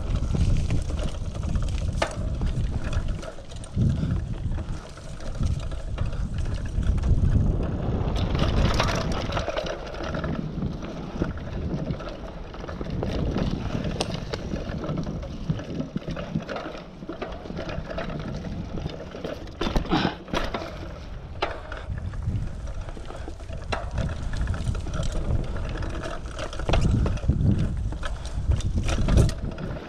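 Mountain bike ridden fast along a dirt trail: wind buffeting the microphone, tyre noise on dirt and leaves, and the bike rattling with sharp knocks over bumps, several times.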